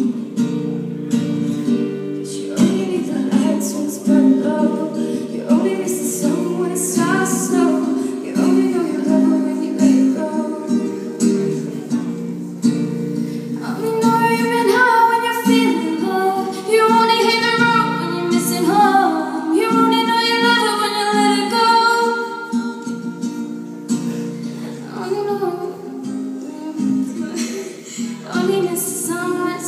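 Live acoustic guitar strumming chords, with a girl singing over it; the singing is strongest through the middle.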